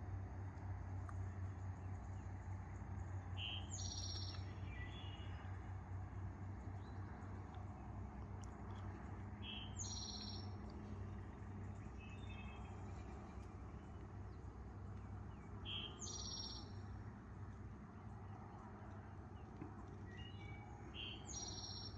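A songbird singing the same short phrase four times, about six seconds apart: a lower note, a jump to higher notes, then a few lower notes. Under it runs a faint, steady low hum.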